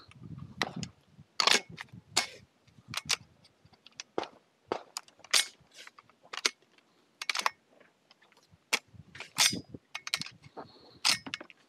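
Pistol-calibre carbine firing a string of about twenty shots at an irregular pace, single and in quick pairs, during a shooting stage. There is a short high ringing tone near the end.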